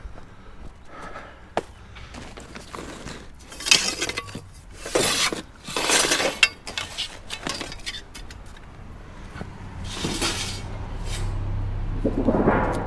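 Scrap being handled in a kerbside rubbish pile: several clattering, clinking crashes of metal and glassy junk being moved. Near the end a low hum and a swelling rush come in.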